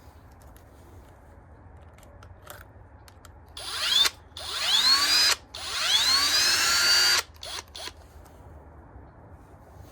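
Power drill running in three short bursts, its motor whine rising in pitch each time it spins up, followed by a few faint clicks.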